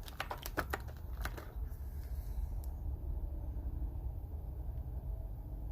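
A quick run of sharp clicks and rattles as a Heli-Coil thread repair kit is handled and opened, then a single click, over a low steady hum.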